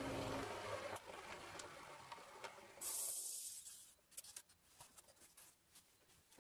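A homemade dust-collector blower's plywood impeller coasting to a stop: its motor hum cuts off about half a second in and the rush of air fades away. A short, sharp hiss about three seconds in is followed by a few faint light ticks.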